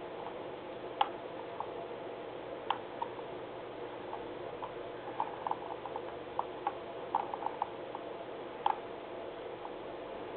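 Light, irregular clicks of a computer mouse scroll wheel as a document is scrolled, some in quick runs of three or four, over a steady background hum.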